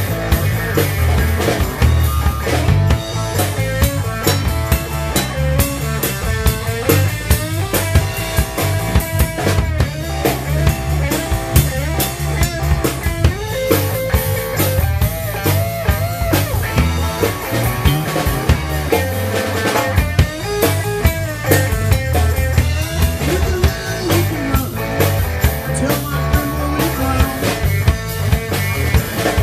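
Live rock band playing through PA speakers: a Ludwig drum kit keeping a steady beat under electric guitar and bass guitar.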